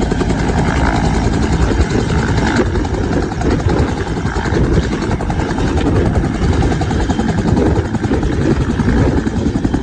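Bell UH-1 Huey helicopter close by on its landing approach: the steady, rapid rhythmic beat of its two-blade main rotor over the whine of its turbine engine, loud throughout.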